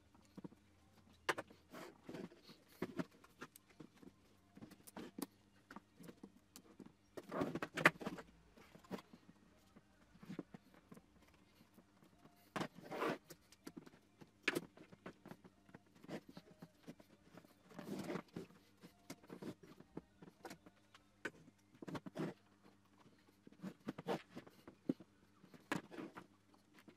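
Handling noise from a Volvo XC60 headlight assembly being worked on with pliers: irregular clicks, knocks and scrapes of plastic housing and metal bracket, coming in clusters with the loudest knocks about a third of the way in.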